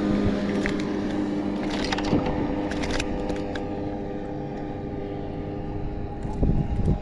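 A steady engine drone from a passing motor, an even hum that slowly fades a little, with a few light clicks scattered through it and a couple of louder knocks near the end.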